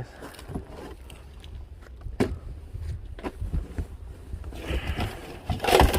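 Packaging rustling and goods knocking as returned items are unpacked and sorted by hand: scattered clicks and knocks, with a louder rustle near the end.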